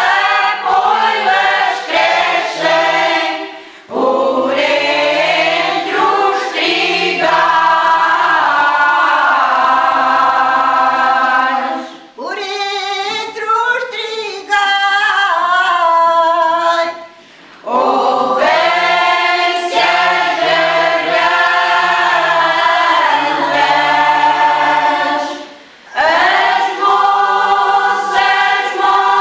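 Women's choir singing cante alentejano, traditional Alentejo polyphony without instruments, in long phrases broken by short pauses.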